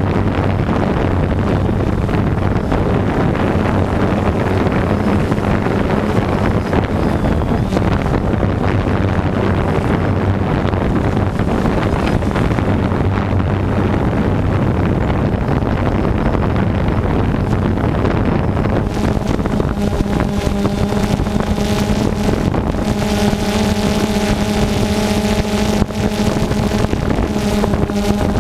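Multirotor drone's motors and propellers humming steadily close to the microphone, with wind noise on the microphone. From about twenty seconds in, a higher set of tones joins as the motor speeds change.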